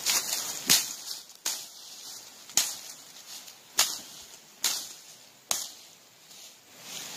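Dry leaf litter on the ground being struck and swept aside: six sharp hits about a second apart, with rustling of dry leaves between them.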